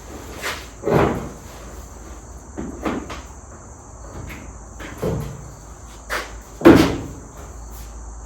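A sheet-metal quarter panel being handled and knocked into place during fitting: irregular clunks and knocks, about eight in all, the loudest a little under seven seconds in.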